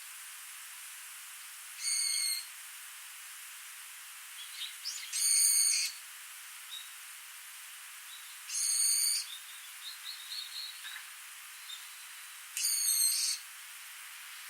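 A small stream running steadily, with a bird giving a short high call four times, about every three and a half seconds, and a few faint chirps in between.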